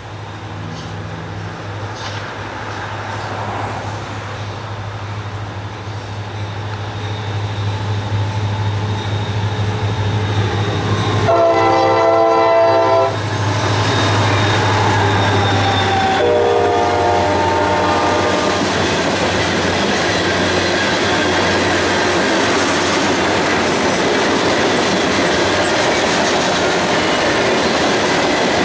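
Diesel freight train approaching, its engine hum growing louder, then sounding its air horn in a loud blast of about two seconds followed a few seconds later by a second, shorter blast. The cars then roll past with steady wheel and rail noise.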